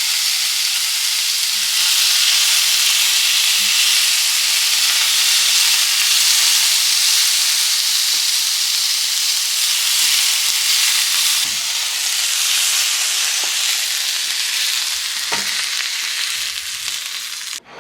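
Eggplant and meat sizzling as they fry in olive oil in a pan: a steady sizzle that grows louder about two seconds in, with a few light taps, then cuts off abruptly near the end.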